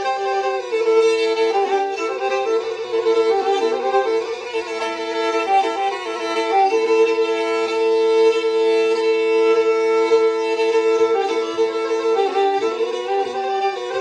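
Background music: a Black Sea kemençe, the small bowed folk fiddle, playing a folk tune, with some notes held for several seconds.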